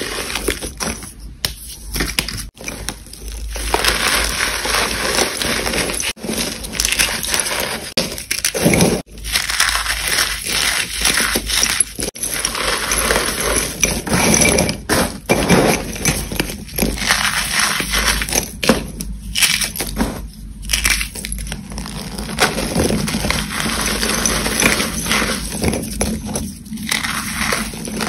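Bare hands crushing and crumbling reformed chalk slabs and school chalk sticks: continuous dry crunching and crackling, with a few short pauses.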